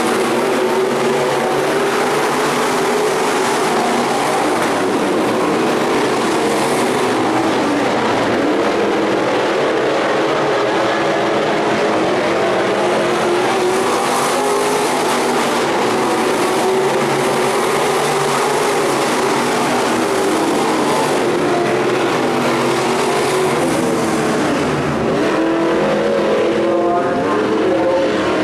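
A field of sport modified dirt-track race cars with V8 engines running hard together, a loud steady drone of several engines at once. Near the end the engine pitches swoop down and back up as cars slow and accelerate.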